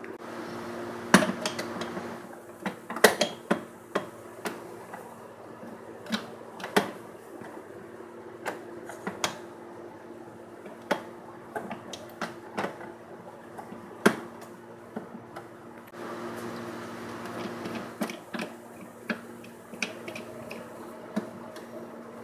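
Irregular clicks and knocks of plastic and metal as a meat-mincer attachment's metal feed tube and plastic locking ring are fitted onto an electric juicer-set motor base, over a steady low hum.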